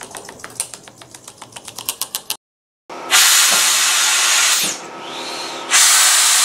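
A run of ratchet-like clicks that speed up, then, after a short break, a loud hiss of compressed air from an air hose feeding a homemade air engine, easing for about a second before it comes back full.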